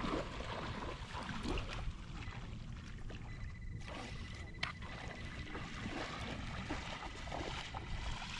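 Shallow seawater sloshing and swirling as a hand and a pinpointer probe the sandy, weedy bottom, over a constant low rumble on the microphone. A faint steady high tone comes in about three seconds in, and there is a single click near the middle.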